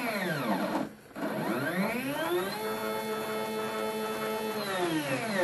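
NEMA 23 stepper motor driving the X axis of a Sieg X3 mill on a CNC conversion, whining with the feed: its pitch falls as the table slows to a stop about a second in, then rises as it speeds up the other way, holds steady, and falls again near the end. It has a bit of chatter when it starts, which the owner isn't sure is normal.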